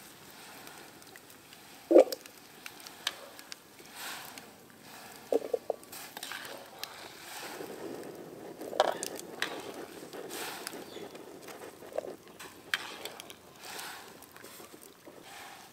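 Cooking and food-preparation handling sounds: scattered knocks and clinks of utensils and cookware, the loudest about two seconds in and a quick cluster a few seconds later, over a faint crackling hiss.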